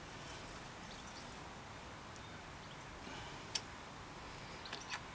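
A few sharp, light metallic clicks from a rear derailleur and Allen key as the derailleur is fitted onto the frame's dropout hanger: one about three and a half seconds in, then two close together near the end.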